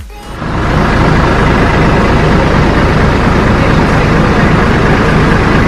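Speedboat engine running, with wind and water rushing over the microphone: a loud, steady roar with a heavy low rumble that comes in suddenly just after the start.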